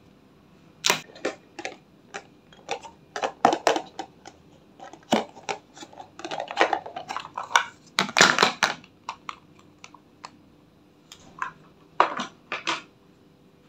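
Plastic makeup packaging handled and opened by hand: a run of irregular sharp clicks, taps and clacks, densest about eight seconds in.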